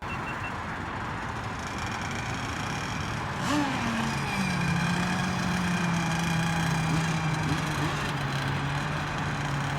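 Small radio-controlled racing boat engines running after being started. About three and a half seconds in, one engine revs up, drops back and settles into a steady idle.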